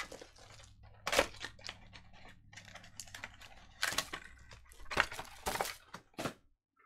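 Foil-wrapped trading card packs being pulled from their box and stacked on a mat: irregular crinkling and sharp clicks of the foil wrappers, with about six louder clicks spread through.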